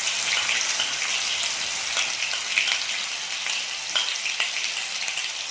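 Ground onion paste sizzling in hot oil in a kadai, a steady loud frying hiss broken by a few sharp clicks.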